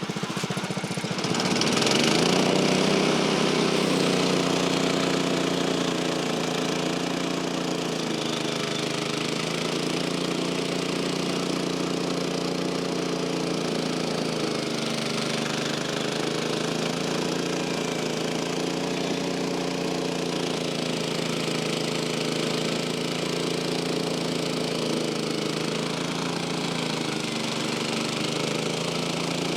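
Portable sawmill's small gas engine revving up over the first couple of seconds, then running steadily at speed with a slightly wavering pitch.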